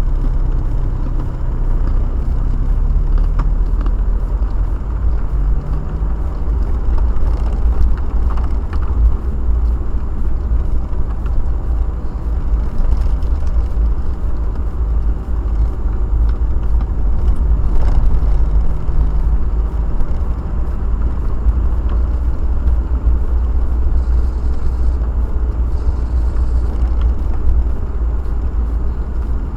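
A car's engine and tyres rumbling steadily, heard from inside the cabin while driving. The engine note rises and falls a little as the speed changes.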